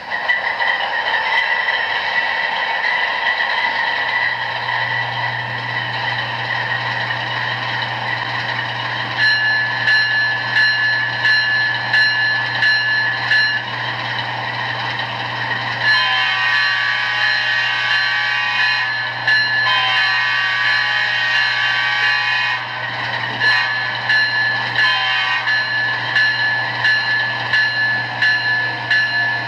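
Sound decoder in an HO scale GE P42 model diesel locomotive playing its recorded sounds through a small speaker. A steady diesel engine hum sets in a few seconds in, with a bell clanging at an even beat, and about halfway through two long multi-tone horn blasts sound over it.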